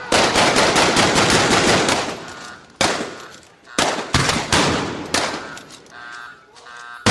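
Gunfight: a burst of rapid automatic fire for about two seconds, then single shots at irregular intervals, each echoing away.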